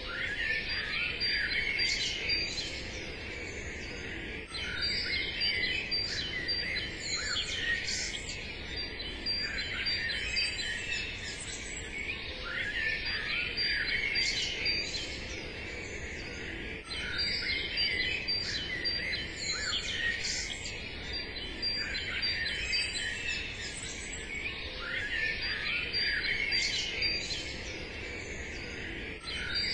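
Small songbirds chirping and twittering in a busy, overlapping chorus, with a thin steady high tone and a low, even background hum beneath them.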